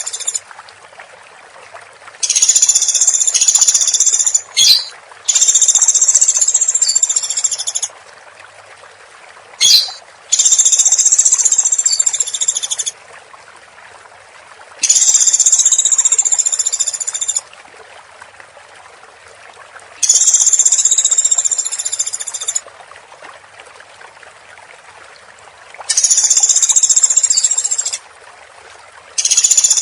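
Woodpecker giving loud, dense, high-pitched rattling calls, each lasting about two and a half seconds and repeated roughly every five seconds, with two short sharp calls between the first few.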